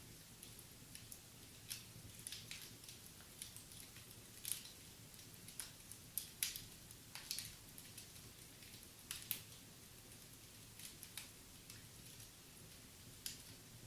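Wood fire crackling in a fireplace: faint, irregular pops and snaps, the sharpest about four and a half, six and a half and nine seconds in.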